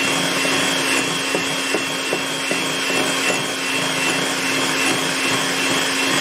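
Electric hand mixer running at a steady speed, its beaters whisking lemon curd mixture in a bowl: a constant motor whine with a few light clicks.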